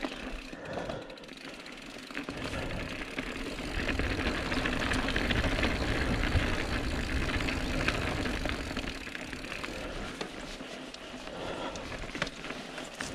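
Mountain bike ridden up a singletrack climb: tyres rolling over dirt and stones, with scattered clicks and rattles from the bike. The noise swells through the middle and eases off again.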